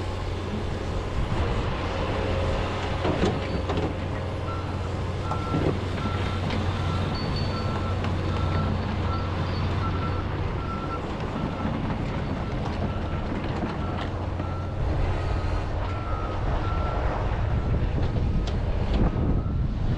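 John Deere 210G excavator's diesel engine running steadily under work, with a few short knocks. From about four seconds in, a back-up alarm beeps repeatedly at a single high pitch, roughly three beeps every two seconds.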